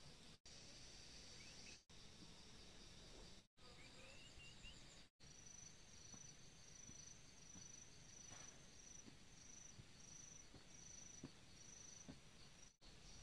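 Faint outdoor insect chorus: a steady high trill that turns into a regular pulsing, a little under two pulses a second, from about five seconds in, with a couple of short rising bird chirps early on. The sound drops out completely for an instant several times.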